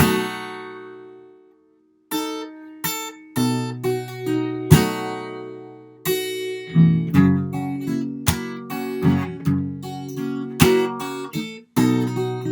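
Acoustic guitar played fingerstyle: a chord struck at the start rings out and dies away, then after a short break a picked pattern of bass notes and chord tones resumes and carries on.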